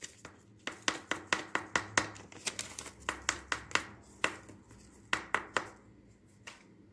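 A baking powder sachet being tapped to shake it empty over a mixing bowl: a quick run of sharp, light taps, about four a second, breaking off just before four seconds in, then three more taps around five seconds.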